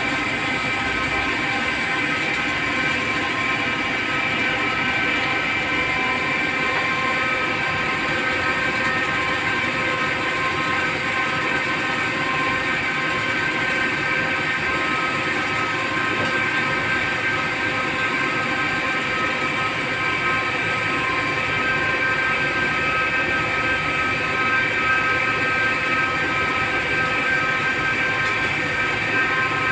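CNC lathe spindle running steadily while the turning tool cuts the extruded rod for a car AC pipe fitting: a continuous whir with several steady high whining tones, the finishing cut of the turning cycle.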